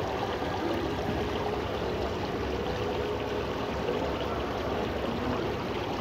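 Indoor waterfall wall: water sheeting down a tall glass panel and splashing, a steady, even rush of falling water.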